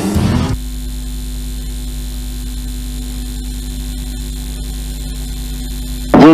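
Steady electrical mains hum, a constant low drone with a higher overtone, after the last of the background music cuts off about half a second in.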